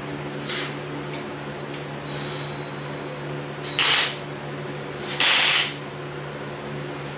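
Cordless impact wrench running in two short bursts, snugging up the connecting rod cap nuts on a freshly machined Ford 302 V8's crankshaft, over a steady low hum.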